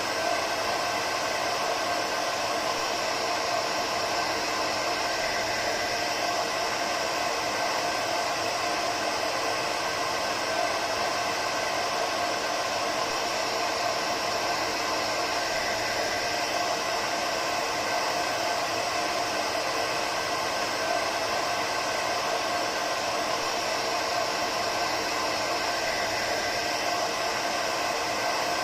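Hair dryer running steadily: a constant rush of air over the hum of its motor, unchanging throughout.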